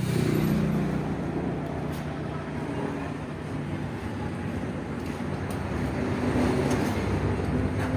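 Honda CBR150R's single-cylinder engine running steadily through an aftermarket Akrapovic M1-style exhaust, a little louder toward the end.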